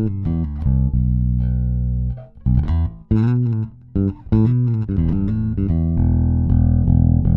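Carvin five-string active electric bass (18-volt electronics) played fingerstyle: a passage of deep held notes mixed with quicker plucked phrases and higher chordal notes, the notes ringing with a clean tone.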